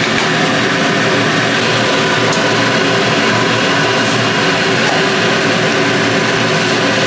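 Loud, steady mechanical drone of an engine-like machine running outside, a constant hum made of several fixed tones that does not rise or fall.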